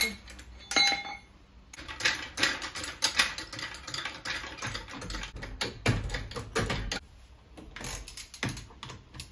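Hydraulic floor jack being pumped by its handle, a run of short metallic clicks and clanks with each stroke as the car is lifted. Near the end, a few clicks from a socket wrench on the wheel nuts.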